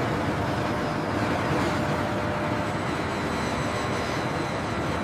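Steady heavy-machinery rumble and hiss with a faint hum, as an overhead gantry crane hoists a tank hull on chains.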